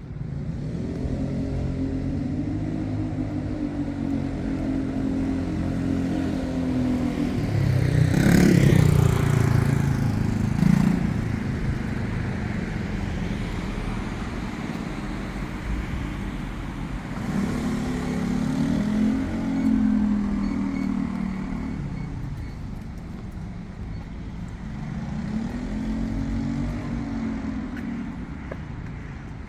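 Street traffic: several motor vehicles drive past one after another, their engine pitch rising and falling as each goes by. The loudest and closest pass comes about eight seconds in.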